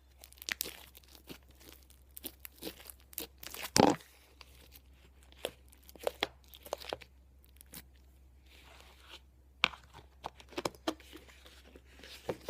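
Homemade slime being squished and stretched by hand, giving irregular sticky pops and crackles, the loudest about four seconds in.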